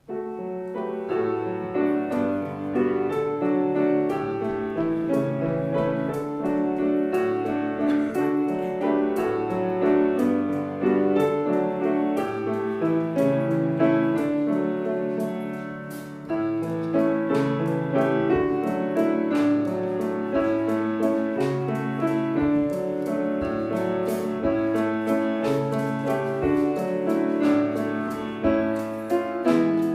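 Solo piano music played as the offertory, starting at once and carrying on with a short dip in volume about halfway through.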